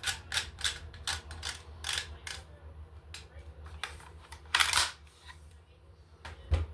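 Metal clicks and scrapes from a Stevens 320 pump shotgun being handled and fitted together: a run of quick clicks, then a longer sliding rasp about four and a half seconds in, and a thump near the end.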